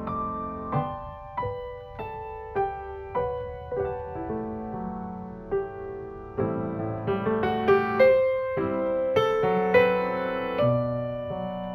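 Solo piano music: a slow melody of single struck notes over sustained chords.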